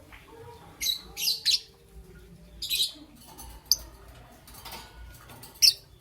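Young peach-faced lovebird chirping: about half a dozen short, sharp, high-pitched chirps, some in quick pairs, with the sharpest ones near the middle and near the end.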